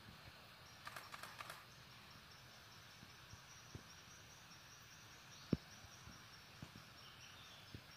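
Quiet rainforest ambience with a faint, steady, high insect tone. A quick run of sharp clicks comes about a second in, and a single low thump about five and a half seconds in.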